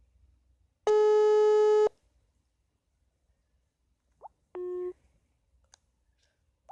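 Phone ringback tone of an unanswered outgoing call: one loud, steady beep lasting about a second. A shorter, quieter, lower beep follows a few seconds later.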